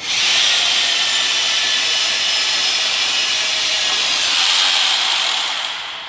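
Electric motor of a portable telescopic lifter running as it winds the mast up under load: a steady whirring whine that starts abruptly and fades away near the end.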